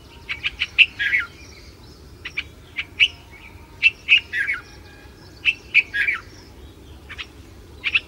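Red-vented bulbul calling: short, bubbly chirps in quick phrases of a few notes, repeated every second or two, some notes dropping in pitch at the end of a phrase. A faint low steady background noise runs underneath.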